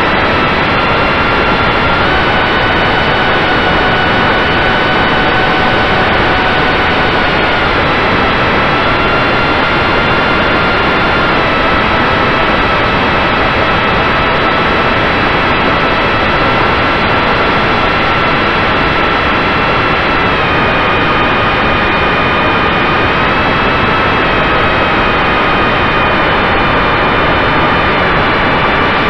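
RC model plane's motor and propeller, heard from the onboard camera: a loud, steady rush of air noise with a motor whine that steps up and down in pitch a few times as the throttle changes.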